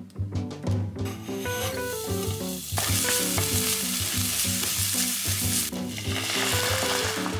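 Food sizzling in a hot pan. It starts suddenly about three seconds in, breaks off briefly and resumes, over background music with a light melodic beat.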